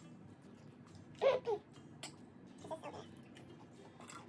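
Close-miked mukbang eating sounds: soft mouth clicks and chewing, with a short two-part vocal sound about a second in and a fainter one near the three-second mark.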